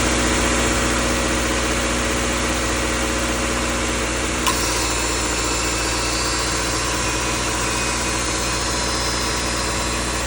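Car engine idling steadily, with a single short click about four and a half seconds in.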